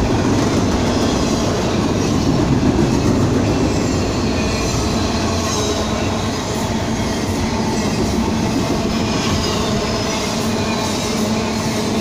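Double-stack intermodal freight train's well cars rolling past: a steady, loud rumble and clatter of steel wheels on rail, with faint high-pitched wheel squeal.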